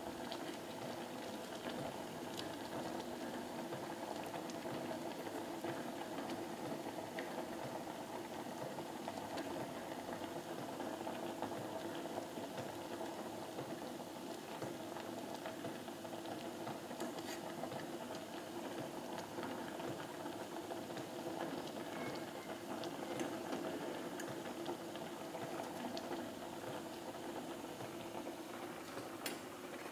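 Sayur asem broth with water spinach at a steady rolling boil in a pot, bubbling continuously as the vegetables cook until tender.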